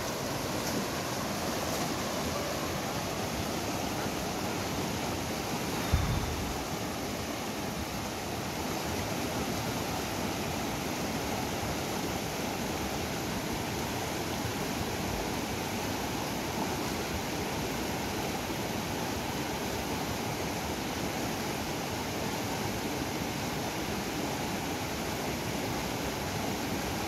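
Steady rushing of a fast, shallow mountain river running over rocks and rapids. A single short low thump about six seconds in.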